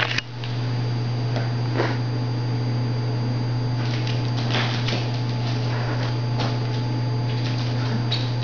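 A steady low electrical hum runs throughout. Over it come scattered soft scuffs and wing flutters as young owls hop and flap on a hard floor, mostly in the middle and near the end.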